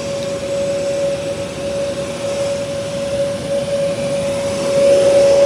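Jet aircraft running nearby: a steady roar with a constant high whine through it, growing a little louder near the end.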